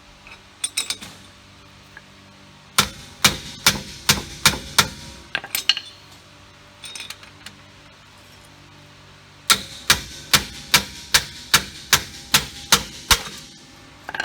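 Hammer striking a bolt, metal on metal, to drive a worn rear wheel bearing hub assembly out of a 2009 Toyota Corolla's knuckle. A few light taps come first, then two runs of sharp ringing blows, about three a second, with a pause of a few seconds between them.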